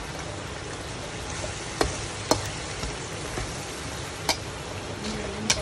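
Beef in thick dark soy gravy sizzling and bubbling in a wok, while a metal slotted spatula stirs it, clinking sharply against the wok four times.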